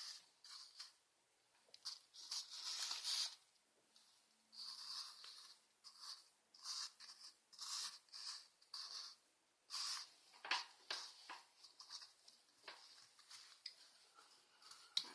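Faint, irregular rustling and light clicks from handling small plastic toy pieces.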